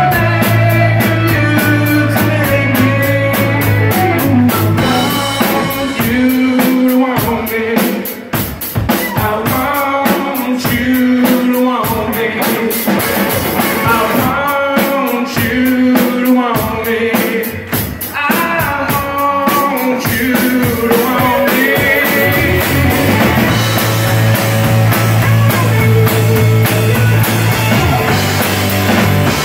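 Live rock band playing loudly: electric guitars, electric bass, keyboard and a drum kit. The low bass line drops out about six seconds in for a stretch over the drums and comes back in about two-thirds of the way through.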